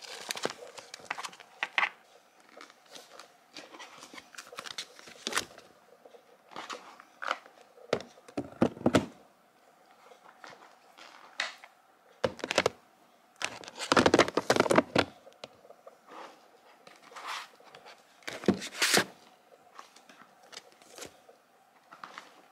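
Sheets of nail water-slide decals and plastic storage containers being handled: intermittent rustling, light taps and clacks, with a few louder flurries of handling about a third, halfway and near the end.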